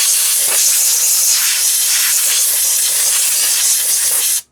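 Compressed-air airline blowing out the freshly tapped bolt holes in a motorcycle primary case: one long, steady hiss that cuts off suddenly near the end.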